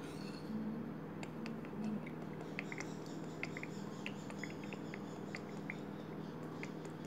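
Quiet room with a steady low hum and many faint, scattered light ticks and clicks.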